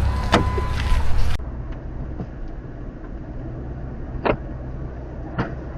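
Ford Excursion running with a steady low rumble. About a second and a half in it cuts to a quieter rumble, with two short, sharp knocks near the end.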